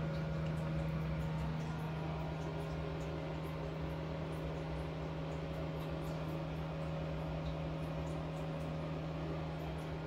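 Steady low mechanical hum with an even background hiss, with faint short high-pitched ticks scattered through it.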